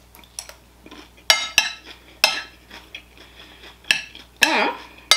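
Metal spoon and fork clinking and scraping against a ceramic plate: several sharp clinks, the loudest and longest about four and a half seconds in.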